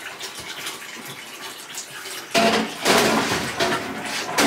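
Water running from a tap, low at first and much louder for the last two seconds or so.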